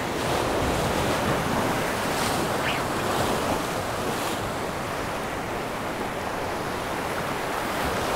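Sea surf breaking against a rocky reef shore and washing over the rocks, a steady rush of waves.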